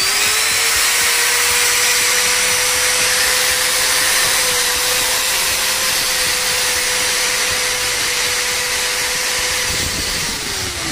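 Bosch GWS 600 angle grinder running free with no disc, a steady whine at full speed with its freshly fitted gear, spindle and 6201 bearing. It makes only its normal running sound, with no extra noise from the gearhead. Near the end it is switched off and winds down, the whine falling in pitch.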